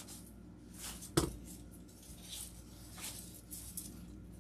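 Faint rustling of artificial fern greenery being handled and tucked into a grapevine wreath, with a single soft thump about a second in.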